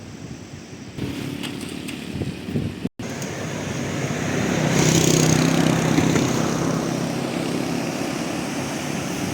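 A steady rushing noise, with a brief cut about three seconds in. After the cut, a vehicle engine hum swells to its loudest a couple of seconds later and slowly eases off.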